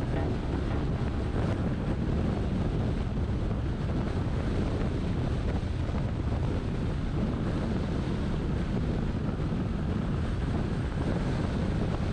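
Steady wind and road noise from a vehicle driving at speed, with wind buffeting the microphone: a constant low rumble.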